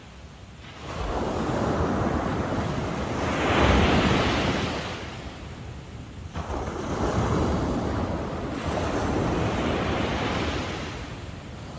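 Sea waves breaking and washing on the shore, the surge swelling and ebbing, loudest about four seconds in and again in a second swell after a dip around six seconds. Wind buffets the microphone with a low rumble underneath.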